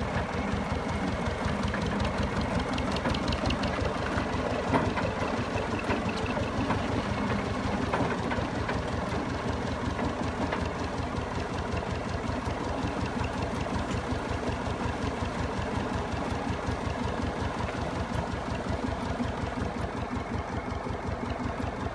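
Volvo T 230 tractor engine running steadily, an even, rapid beat that does not change pace.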